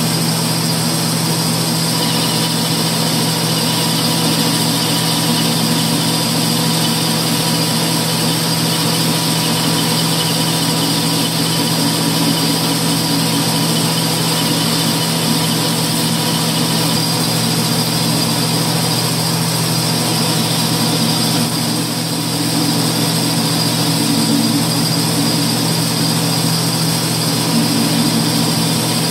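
Metal lathe running steadily through a turning cut on a spinning workpiece under flood coolant: a constant machine hum with the hiss of cutting and coolant over it.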